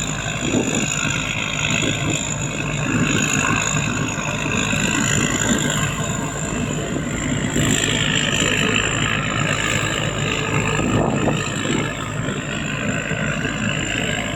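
Rice combine harvester running steadily, its engine and threshing machinery making an even mechanical drone with a steady high whine over it.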